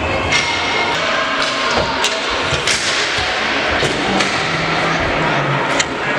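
Ball hockey play: hockey sticks and a ball knocking and clacking on the concrete floor and boards, many sharp knocks at uneven times over a steady background din.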